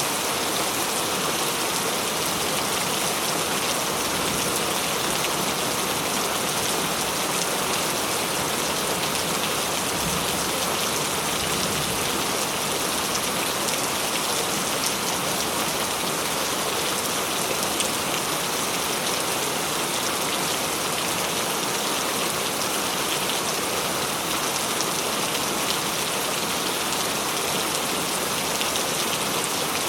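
Steady heavy rain falling, a dense even hiss with fine patter of drops on a surface.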